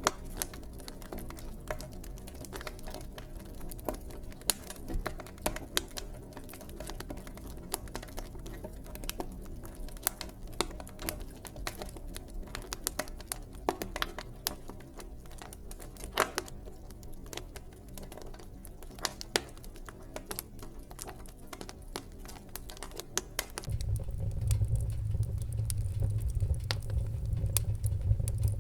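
Fireplace fire crackling, with irregular sharp pops and snaps over a low, steady rumble of flame. About 24 seconds in, the low rumble grows noticeably louder.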